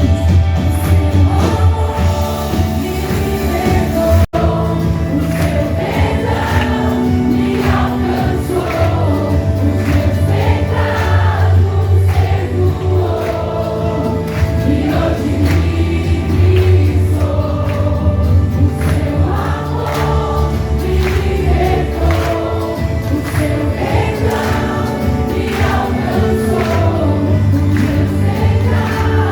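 Worship song: a choir singing over a band with a strong steady bass line. The sound cuts out for an instant about four seconds in.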